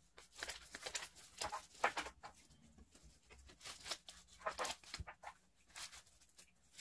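Rustling and brushing of a mesh crib liner and its fabric ties against the crib's wooden slats as it is fastened in place, in irregular bursts.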